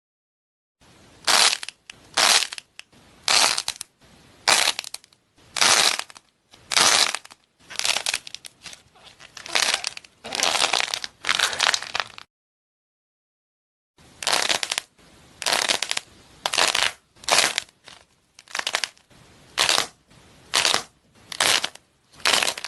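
Crunchy slime being pressed and squeezed, crackling in short bursts about once a second. The sound cuts to silence for a moment near the start and again about halfway through.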